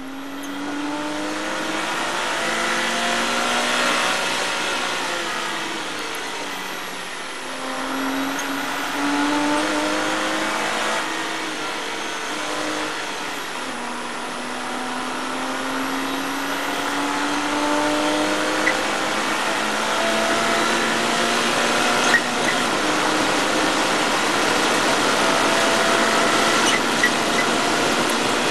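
Porsche Cayman race car's flat-six engine under hard acceleration, revs climbing and dropping back at each upshift, then one long pull as the car gathers speed. A few short clicks come near the end.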